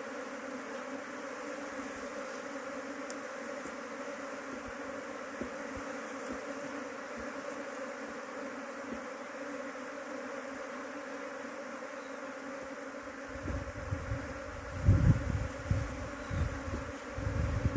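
A mass of honeybees at the hive buzzing steadily, a low even hum. From about two-thirds of the way through, loud low rumbles and knocks break in over the buzz.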